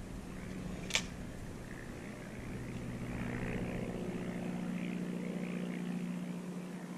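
A steady low engine hum that swells to its loudest in the middle and eases off near the end, with a single sharp click about a second in.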